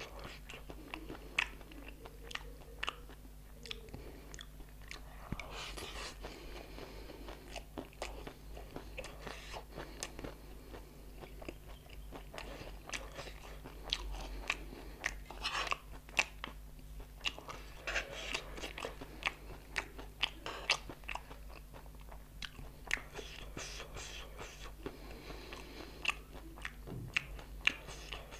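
A person chewing mouthfuls of dry chatpate, crumbled crunchy noodles mixed with onion, with many sharp, irregular crunches.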